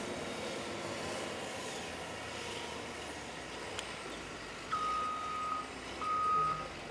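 A steady background noise, then from about four and a half seconds in a vehicle's backup alarm beeping at one steady pitch, each beep lasting under a second, twice.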